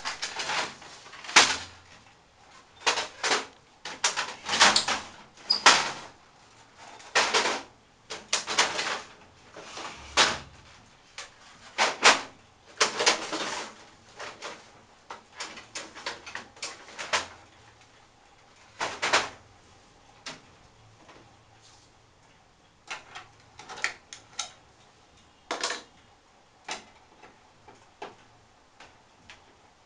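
Plastic and metal panels, trays and parts of a Canon iR3300 photocopier being handled and moved: an irregular run of clacks, knocks and short sliding scrapes, busy at first and thinning out in the second half.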